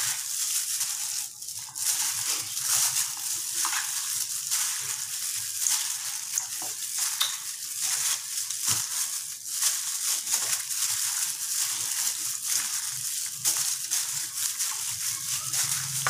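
Gloved hand kneading raw chicken pieces in a wet marinade in a metal bowl: irregular wet squelching and the crinkling of the thin plastic glove.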